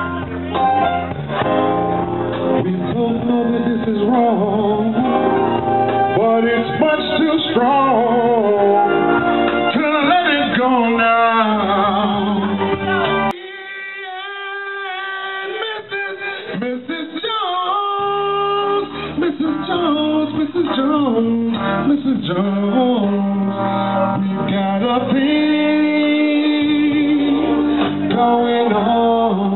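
A man singing through a microphone over backing music with guitar. The bass drops out for a few seconds about halfway through, then comes back.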